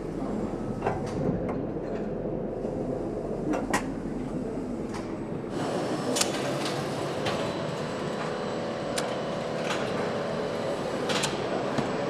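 Engine assembly-line noise: a steady machinery hum with scattered sharp metal clicks and clinks, growing louder about halfway through.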